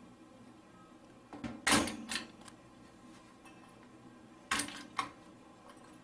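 Sharp plastic clicks and knocks from an Intel stock CPU cooler's push-pin fasteners being released and the cooler handled, the loudest cluster about two seconds in and two more near five seconds in.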